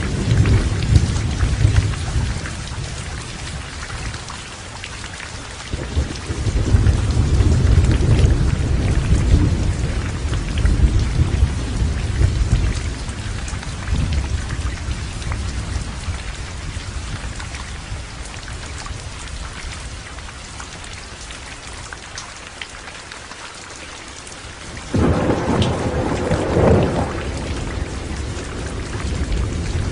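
Heavy rain falling steadily with rolling thunder. A long low rumble builds about six seconds in and dies away, and a sudden, sharper thunderclap breaks in near the end.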